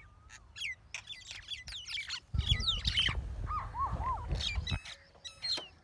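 Two small birds fighting with rapid, repeated short chirps that sweep down in pitch, and a few lower looping calls in the middle. A low rumble runs under the calls from about two and a half to five seconds in.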